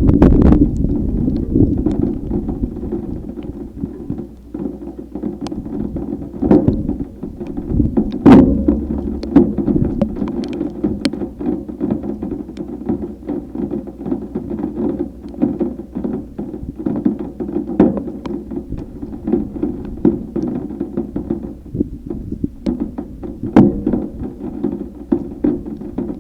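Thunderstorm wind and rain: a loud gust of wind fades over the first few seconds, then rain keeps up a patter of irregular sharp taps and knocks, a few of them louder, about eight seconds in and near the end.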